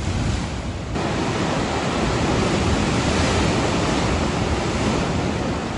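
Sea surf crashing and surging through a narrow rock gully, a loud, steady rush of breaking water that grows fuller about a second in.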